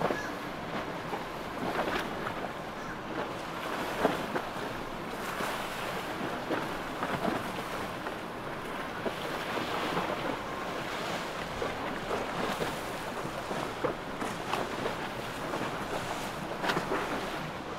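Wind buffeting the microphone over waves and splashing water, with irregular sharp slaps of water every second or two.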